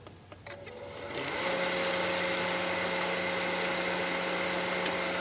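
Pentair variable-speed pool pump motor started on low speed: a few clicks, then the motor spins up over about a second and runs with a steady hum. The owner hears a vibration in it that he believes is internal, as if something inside is not running true.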